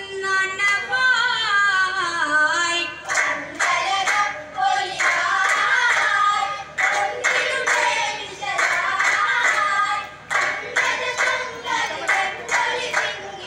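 A group of boys singing a Mappila vattappattu song, unaccompanied. About three seconds in, their steady rhythmic hand claps join the singing.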